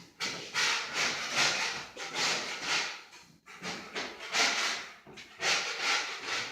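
A series of irregular rubbing strokes on a rough, freshly ground surface, about seven in all with short pauses between them.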